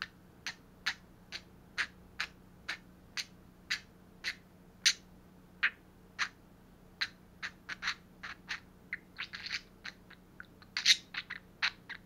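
Budgerigar making sharp clicks, about two a second at first, then faster and more irregular, with a couple of longer, noisier sounds near the end.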